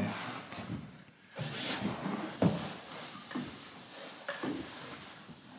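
Heavy carpet being rolled up and shifted by hand: soft scattered thuds and rustling as the roll is pushed and bumps on the floor.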